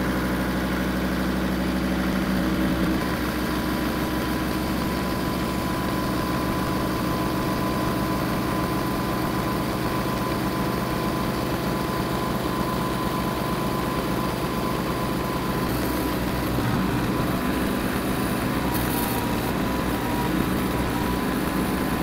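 Kubota M5700 tractor's diesel engine idling steadily just after being started. It is run so the freshly refilled hydraulic fluid circulates and trapped air is purged.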